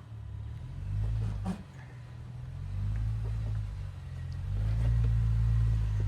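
Jeep engine running at low revs as it crawls over rock, swelling and easing a few times under throttle, strongest near the end.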